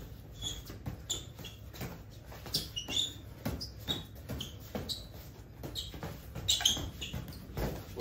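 Boxing gloves striking during a sparring exchange: a run of short, irregular padded smacks mixed with brief high squeaks of shoes on the floor as the fighters move.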